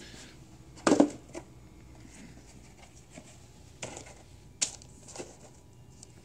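Thin black plastic flower pots being handled and set down on newspaper: a loud plastic knock about a second in, then a few lighter knocks and rustles.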